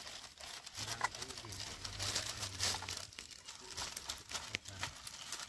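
Irregular crinkling and scraping from besan (gram flour) and spices being mixed together for an egg curry.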